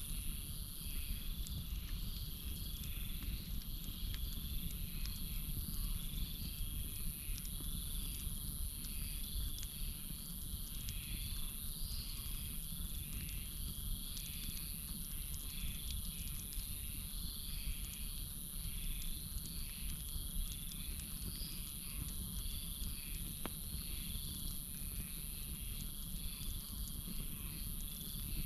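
Night chorus of crickets and frogs over a burning campfire: a steady high insect trill, a call pulsing about one and a half times a second, a low rumble, and a few faint crackles from the fire.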